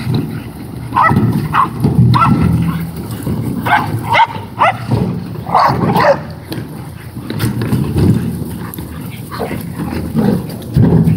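A pack of black mouth cur hog dogs growling and worrying a plastic wheelbarrow, with short high yips and barks breaking in again and again, most often in the first half.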